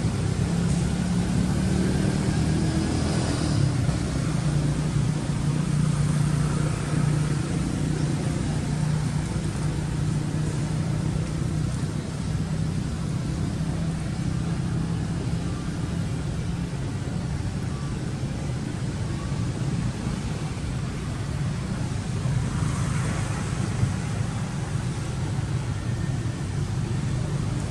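A steady low drone like a running engine, with a hum that holds for most of the stretch and eases a little later on.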